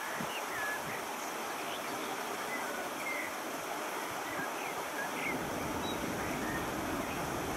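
Airbus A330 jet on final approach to landing: a steady rushing jet noise that takes on a low rumble about five seconds in as the airliner nears touchdown. Small birds chirp now and then over it.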